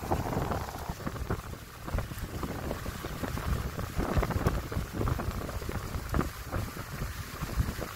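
Wind buffeting the phone's microphone aboard a moving pontoon boat, in irregular gusts over the low rumble of the boat underway.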